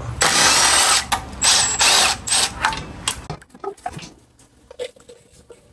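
Ratchet wrench clicking in quick bursts during the first few seconds, then a few light metallic clicks and knocks.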